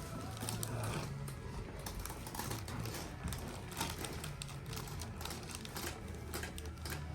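Irregular clicks and taps, a few a second, from a chiropractic adjustment of a patient lying on his back.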